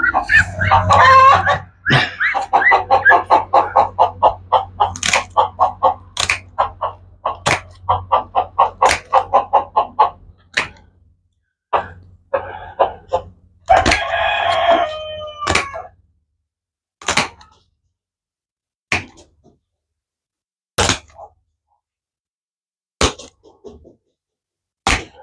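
Chickens clucking in a rapid run for about ten seconds, then a rooster crowing once, about two seconds long, midway through. After that, a few sharp clicks come a couple of seconds apart.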